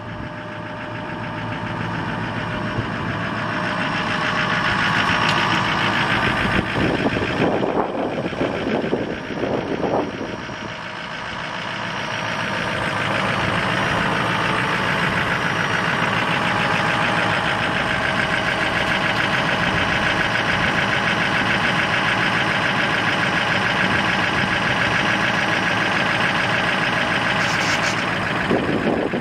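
Ford 6.0L V8 turbo diesel running steadily while driving the PTO hydraulic hoist that raises the dump bed. The sound swells over the first few seconds, dips briefly about ten seconds in, then holds steady.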